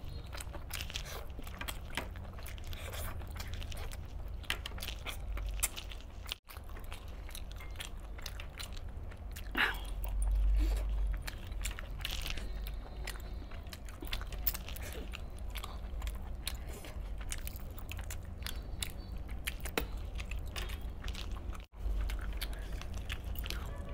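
Close-miked eating: a man biting and chewing chicken cooked in green masala gravy and pulling the meat apart with his hands, a steady run of small wet clicks and smacks. The sound cuts out for an instant twice.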